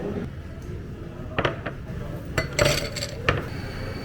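Dishes and cutlery clinking and knocking as they are handled: several sharp clinks, some ringing briefly, starting about a second and a half in and bunching together near the end.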